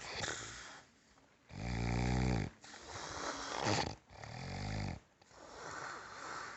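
Rhythmic snoring: two buzzing snores about three seconds apart, each followed by a long breathy out-breath.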